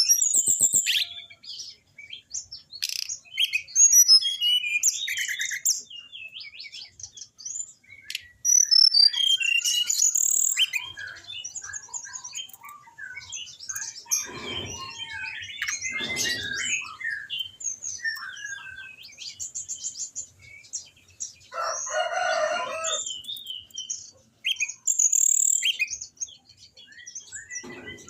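Anis binbin song from a masteran recording: a varied run of high chirps, trills and whistles separated by short pauses, with a few harsher, lower calls in the middle.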